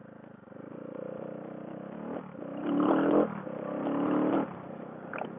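CCM Spitfire's 600-ish single-cylinder engine pulling away and accelerating, the revs building. It dips briefly about three seconds in, rises again, and drops back near the end, like two upshifts.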